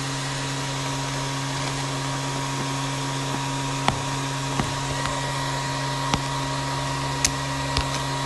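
Steady machine drone with a low hum, like fans running, and a few short sharp clicks and taps from about four seconds in as fingers handle the cardboard graphics-card box.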